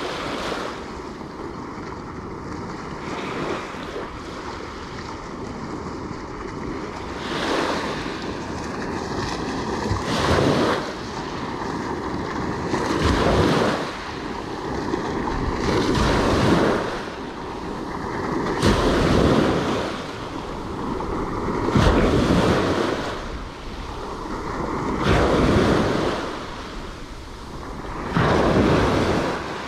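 Small waves breaking on a sand-and-pebble beach, the surf swelling and washing back about every three seconds, with wind on the microphone.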